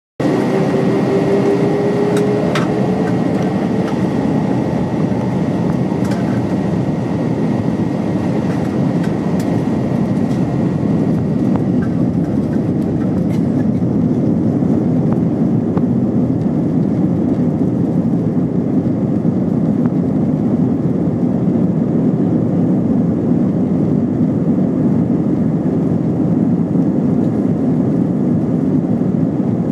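Airbus A320's IAE V2500 turbofan engines running at takeoff power, a loud steady roar with a whine that rises in pitch over the first few seconds and a faint high tone that fades away.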